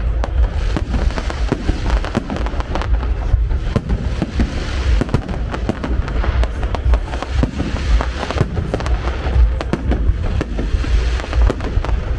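Fireworks display: a dense, continuous run of bangs and crackles over a heavy low rumble.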